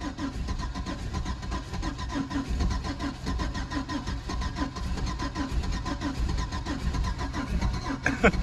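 Chevrolet Blazer's starter cranking the engine in a steady, even rhythm without it firing; the owner suspects the truck is out of gas.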